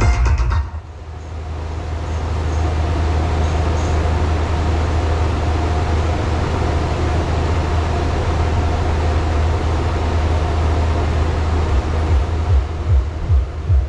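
Outdoor sound-system bass cabinets playing a steady, loud, deep bass drone after a music track cuts off under a second in. Near the end, a throbbing bass beat starts up.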